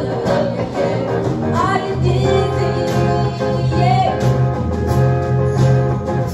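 A live band playing, with electric guitar, drums and a shaken tambourine; strong low notes come in about two seconds in.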